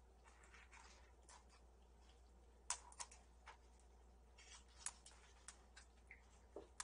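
Kittens playing: faint, irregular clicks and taps with soft scuffling, and a few sharper clicks around the middle.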